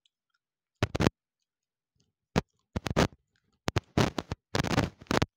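Biting and chewing pieces of a baked clay plate: a run of sharp, dry crunches in short clusters, about five of them, with quiet gaps between.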